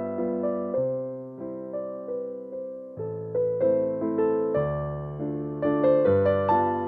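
Background music: a gentle piano melody with a steady pulse of struck notes and soft bass notes beneath.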